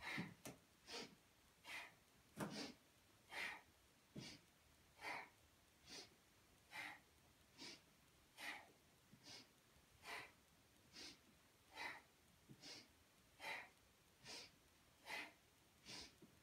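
A woman's faint, quick, even breaths, about one every second, taken in a dynamic breathing rhythm as she repeats a frog-pose squat-and-lift yoga exercise.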